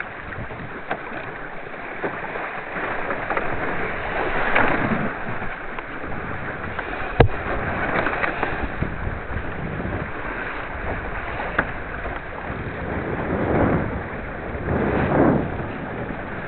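Wind on the microphone and water rushing along the hull of a sailing skiff dinghy under way, swelling louder a few times. A sharp knock comes about seven seconds in.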